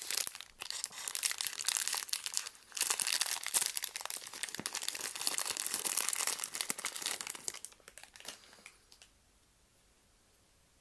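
Blind-box figure packaging being handled and torn open: dense crinkling and tearing for about seven seconds, dying away near the end.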